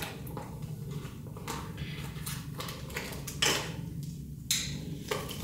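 Light clicks and taps of makeup containers and tools being handled, about half a dozen spread irregularly, over a steady low hum.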